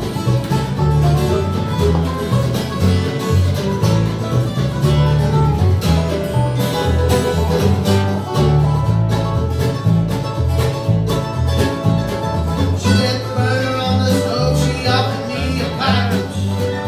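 Live bluegrass band playing: fiddle, mandolin, acoustic guitar and resonator guitar over an upright bass line, in a steady, continuous passage.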